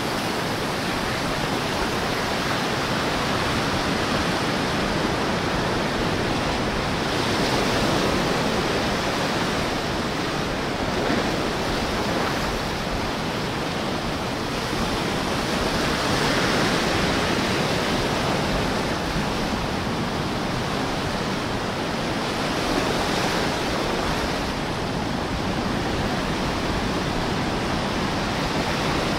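Small ocean waves washing up the sand and over low rocks close by, a steady rush of surf that swells a little three times as waves run up.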